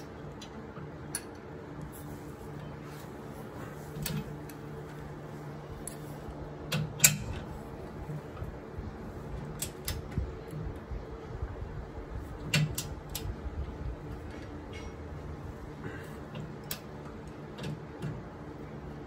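Torque wrench and open-end wrench being worked on a truck-frame bracket bolt: sharp metallic clicks and clinks at irregular spacing, the loudest about 7 and 12.5 seconds in, over the steady hum of a box fan running close by.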